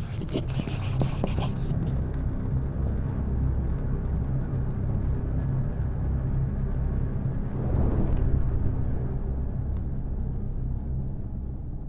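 Deep, steady cinematic rumble of a sound-design logo sting, with crackling in the first second or so and a swell about eight seconds in before it begins to fade.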